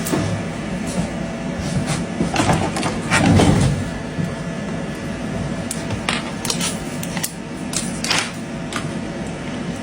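Steady machine hum with scattered sharp clicks and taps, and a louder noisy stretch about three seconds in.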